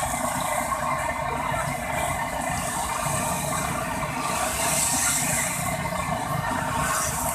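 Steady street-stall noise: a hiss that swells about five seconds in, over a low rumble like traffic.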